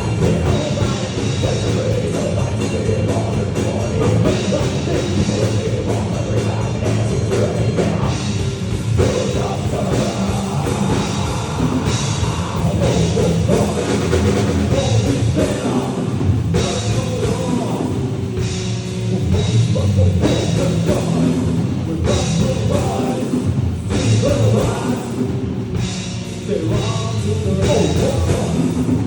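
A rock band playing a heavy song live, loud and continuous, driven by a drum kit.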